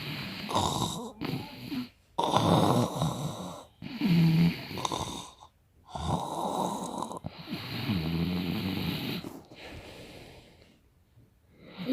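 A person snoring: several drawn-out snores with short pauses between them.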